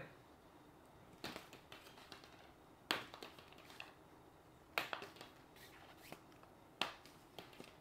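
Hollow plastic ball-pit balls knocking together: four sharp light clicks about two seconds apart, each followed by a few fainter ticks.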